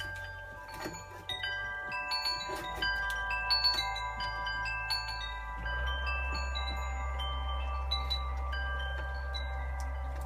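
Wind chimes ringing in the breeze: several chimes struck at irregular moments, their tones overlapping and ringing on, busiest in the first half. A low steady rumble underneath grows louder about six seconds in.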